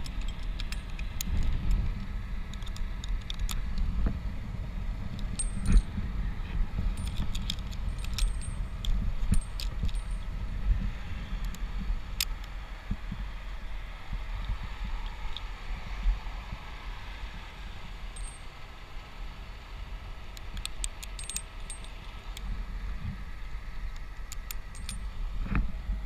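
Metal climbing hardware, carabiners and rope devices on a tree climber's harness, clinking and jangling in scattered light clicks, most busily around 8 to 11 seconds in and again near the end, over a steady low rumble.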